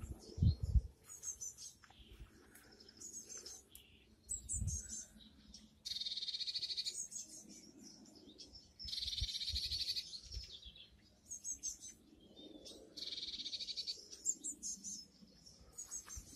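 Songbirds singing: a long trilling phrase repeated three times, a few seconds apart, with shorter high chirps between. A few low thumps, mostly in the first second.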